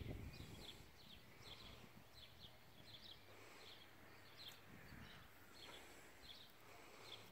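Near silence: faint, high-pitched chirps in the background, repeating about twice a second.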